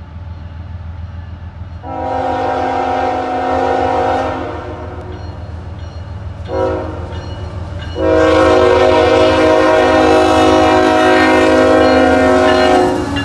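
Diesel locomotives leading a coal train sounding a multi-note horn for a grade crossing: a long blast, a brief blast, then a final long loud blast as the lead unit draws alongside. Under the horn, the locomotives' engines rumble steadily.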